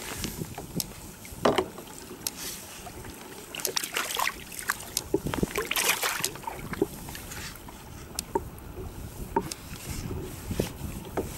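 Sea water splashing beside a kayak as a hooked sea bass is taken by hand at the surface, with several sharper splashes about four and six seconds in.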